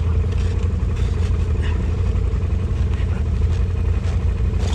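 Snowmobile engine idling steadily, with a few faint knocks over it.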